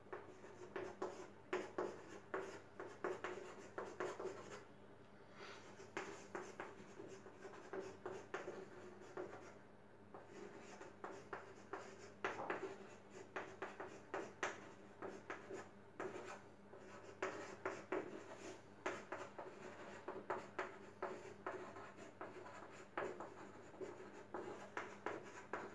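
Faint chalk writing on a chalkboard: an irregular run of short taps and scratches as letters and symbols are written, with brief pauses between groups of strokes.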